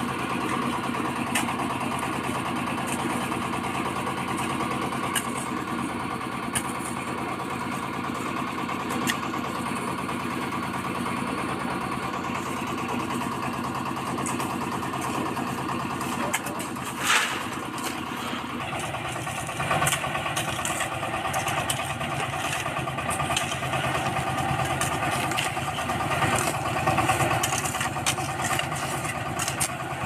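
An engine running steadily, getting louder about two-thirds of the way through, with scattered scrapes and clicks of steel spades and hoes digging into soil and sand.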